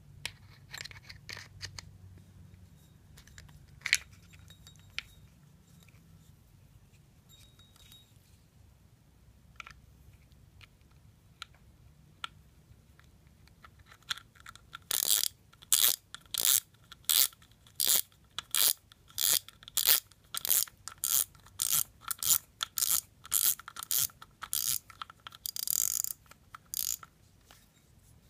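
Shimano spinning reel being worked by hand: a few small clicks as the spool goes onto the main shaft, then, from about halfway, a steady series of short rasping clicks from the reel's mechanism, nearly two a second, stopping near the end.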